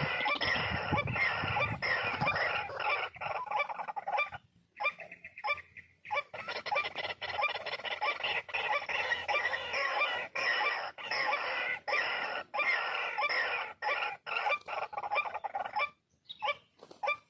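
White-breasted waterhens calling: a dense run of harsh, rapidly repeated notes that breaks off abruptly about four and a half seconds in, resumes a second or so later, and breaks off again near the end.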